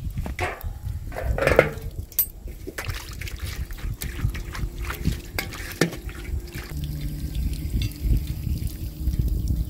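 Water running from a garden hose and splashing in a shallow stainless-steel tray as a hand swishes through it, with a few knocks and clinks, the loudest about a second and a half in.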